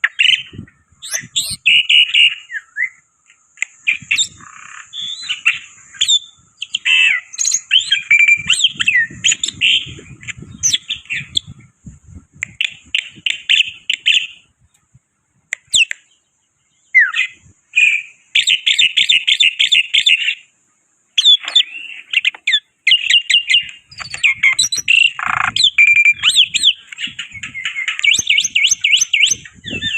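Black-winged starling (jalak putih) singing in loud bouts of fast, repeated chattering notes and short whistles, broken by brief pauses, over a steady high-pitched hiss.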